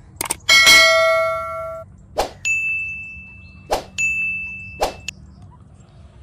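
A loud metallic ding that rings for about a second and cuts off suddenly, followed by three sharp clangs over a steady high tone that stops abruptly.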